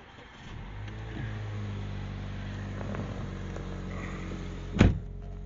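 Mazda CX-3 engine starting from the push button, heard inside the cabin: it catches about half a second in, revs up briefly and settles to a steady idle. A single sharp knock sounds near the end.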